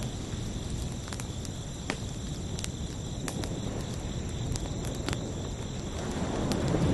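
Crickets chirping steadily over a quieter wash of ocean surf, with scattered sharp clicks; the surf swells up again near the end.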